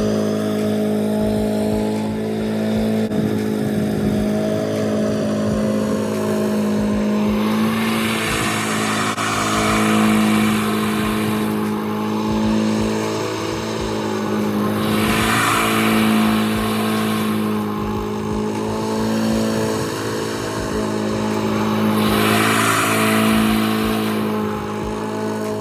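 Honda twin-blade walk-behind lawn mower engine running steadily while mowing, with a hissy swell about every seven seconds.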